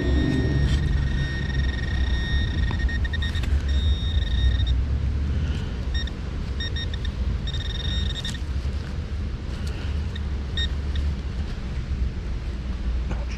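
Metal detector tones: a steady high beep that breaks off and returns, at times chopping into rapid short pulses, over a constant low rumble.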